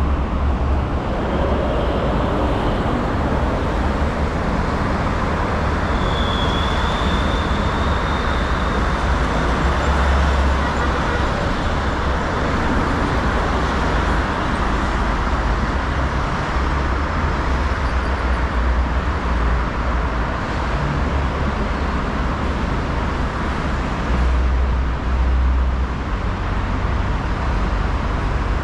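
Steady road traffic noise, with a low rumble that swells and eases as vehicles pass; a faint high whine sounds briefly about six seconds in.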